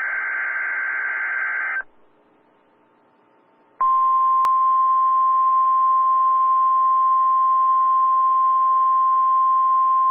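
NOAA Weather Radio test heard through a receiver. A rasping SAME digital data burst ends about two seconds in. After a short quiet gap, the steady 1050 Hz warning alarm tone comes on about four seconds in and holds, over faint radio hiss, with a click just after it starts.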